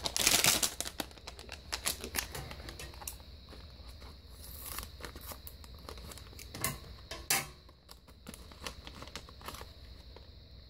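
Plastic foil blind-bag packet of toy figures crinkling as it is handled, then snipped open across the top with scissors, with a few sharp snips.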